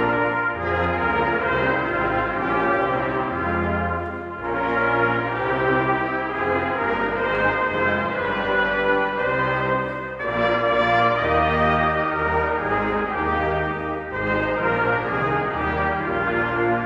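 Brass choir of trumpets, trombones and tuba playing in parts: held chords over a moving bass line, with short breaks between phrases about four, ten and fourteen seconds in.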